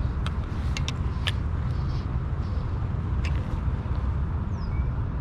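Steady low outdoor rumble with a few sharp ticks early on, and faint high descending bird chirps near the end.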